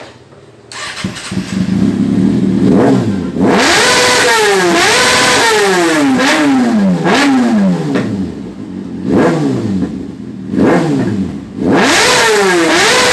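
An engine revved hard again and again, its pitch climbing with each throttle blip and falling back as it drops off; it comes in about a second in.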